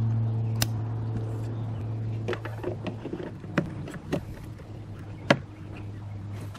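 Several short sharp plastic clicks as an LED bulb is pressed into its socket and the socket is worked into the tail light housing. Under them runs a steady low motor hum that slowly fades.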